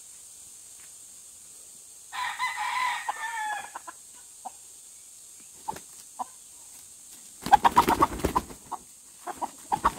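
Native rooster crowing once, about two seconds in, then a loud burst of quick clucking near the end as it is fed.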